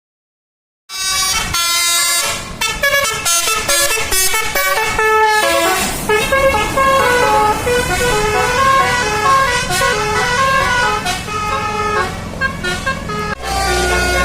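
Indonesian bus "telolet" musical air horn (Basuri type) playing a quick multi-note tune, starting about a second in. Near the end a low steady rumble joins it.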